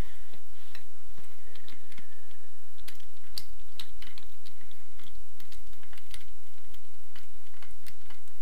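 Scattered light metallic clicks and taps from a socket on an extension bar as a 12 mm cylinder head bolt on a Honda VFR800 V4 engine is turned loose by hand.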